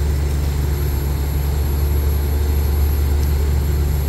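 Truck-mounted borewell drilling rig and its air compressor running steadily: a deep, even engine drone.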